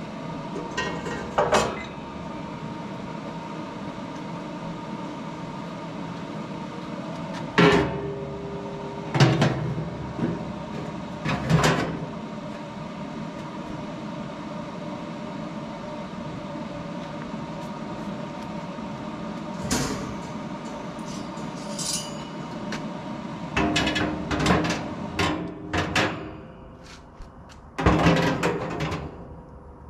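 Parts of a pellet smoker grill being put back into the grill: a handful of separate clanks and knocks, with a cluster of them about three quarters of the way through. They sound over a steady hum that stops near the end.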